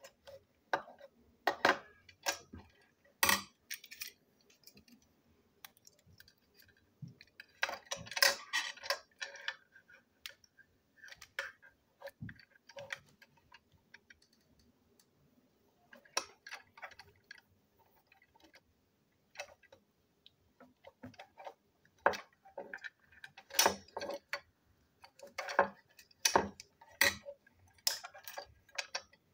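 Plastic toy train parts and a metal screwdriver clicking and clattering as the engine is taken apart by hand: irregular sharp clicks, with bunches of quick rattling clicks about a third of the way in and through the last few seconds.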